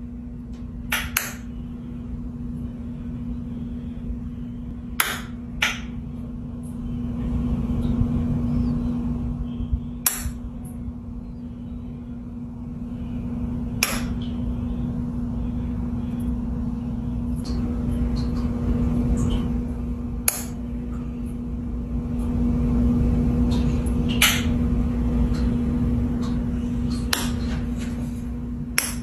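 Peacock mantis shrimp striking with its club-like raptorial appendages: about ten sharp clicks spread irregularly, a few seconds apart. A steady hum of aquarium equipment runs underneath.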